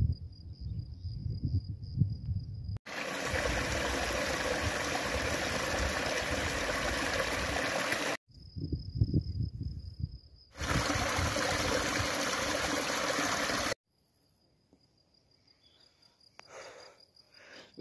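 Water of a small woodland stream rushing steadily over a little waterfall, in two stretches that cut in and out abruptly, alternating with wind rumbling on the microphone and a steady high insect chirr. The last few seconds are nearly silent.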